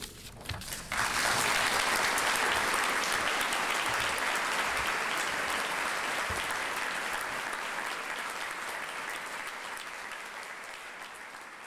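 Audience applauding, starting about a second in and slowly fading away toward the end.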